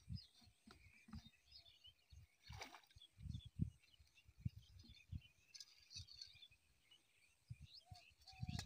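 Faint chirping of small birds, with scattered low thuds and one sharp click about two and a half seconds in.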